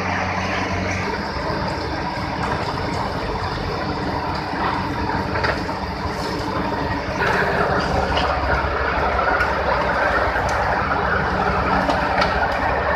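Sugarcane crushing mill machinery running: a steady, loud mechanical din that gets louder about seven seconds in.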